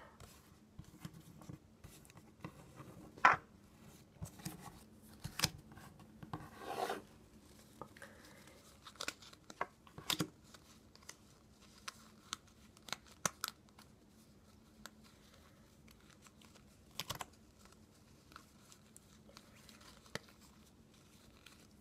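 Playing cards being handled and stacked: irregular light clicks and taps of card edges with short papery rustles, a few clicks louder than the rest.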